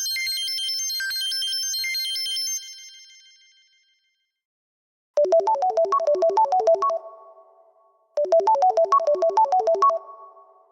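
Samsung Galaxy S4 ringtones. A high, tinkling melody stops about two and a half seconds in and rings away. After a gap, another ringtone starts: a lower, quick melody of short notes, played twice with a pause between.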